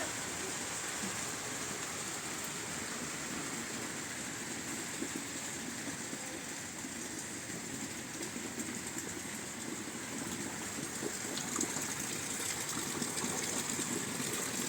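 Heavy rain falling steadily, an even continuous hiss.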